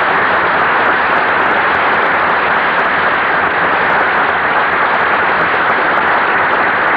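Studio audience applauding, a dense, steady clapping, heard on an old radio broadcast recording with no high treble.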